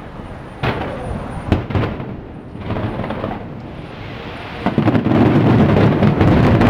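Aerial fireworks shells bursting: a few separate booms in the first two seconds, then about two-thirds of the way in a dense, loud barrage of rapid bursts that runs on without a break.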